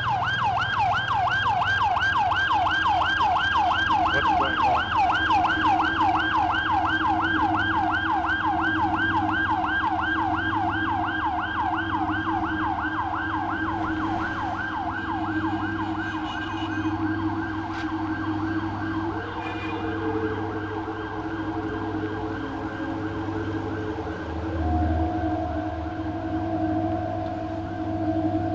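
An electronic siren-like tone warbling rapidly up and down, about four to five times a second, slowly fading and dying out about two-thirds of the way through. Under it run a steady low hum and held tones, and one or two new steady tones come in near the end.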